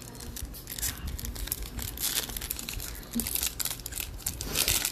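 Plastic-foil trading-card pack wrapper crinkling in the hands, then being torn open, with crackling loudest about two seconds in and again near the end.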